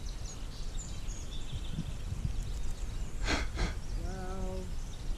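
Outdoor ambience beside a shallow stream: a steady low rumble with faint bird chirps, two quick breaths a little past three seconds in, then a brief pitched note about a second later.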